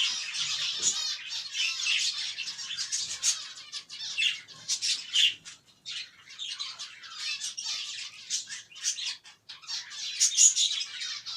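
A colony of caged finches calling, with many short, high-pitched chirps overlapping almost without pause.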